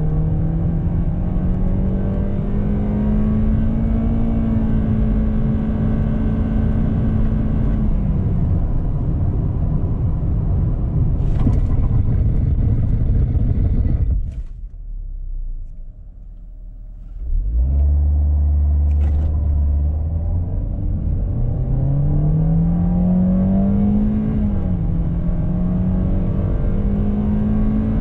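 2019 Lexus UX 200's 2.0-litre four-cylinder petrol engine accelerating hard through its CVT, heard inside the cabin: the engine note holds at a steady high pitch for several seconds while speed climbs, then falls away. After a brief quieter gap the engine drones low, then revs up in a rising whine and holds steady again near the top of the rev range.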